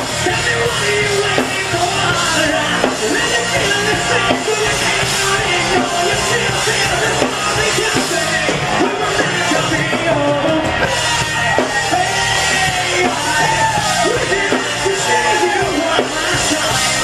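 Live rock band playing electric guitars and drum kit, with a male singer singing into a microphone over it.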